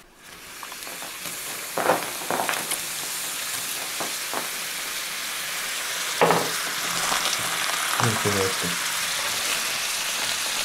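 Liquid nitrogen filling a polystyrene foam box and boiling hard against the warm box, a steady sizzling hiss that starts just after the opening. A few short knocks and clatters come through it.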